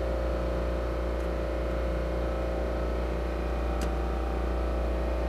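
Steady low hum of running machinery, with several steady tones over a deep drone, and a couple of faint clicks.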